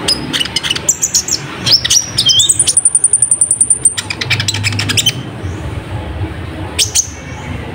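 Olive-backed sunbird (kolibri ninja) singing. It gives sharp, high chirps, then a fast, high-pitched trill of rapid notes lasting about two seconds, and one more chirp near the end.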